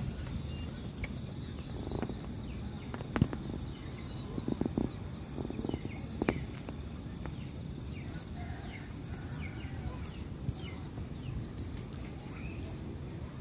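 Outdoor ambience of many small birds chirping, quick short falling calls throughout, over a steady low background rumble and a steady high insect-like hum. A few sharp knocks stand out, the loudest about three seconds in and another about six seconds in.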